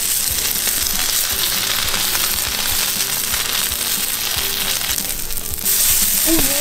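Wagyu A5 steak sizzling on a hot steel griddle plate, fat spitting as it sears. The sizzle grows louder near the end.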